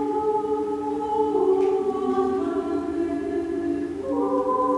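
Small choir singing a cappella: long held notes in several voice parts, with new notes entering one after another to build up a sustained chord that thickens again about four seconds in.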